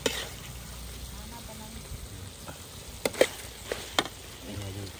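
Stir-fried eels with kroeung sizzling steadily in the pan as the dish is finished, with a few sharp clinks of a cooking utensil about three to four seconds in.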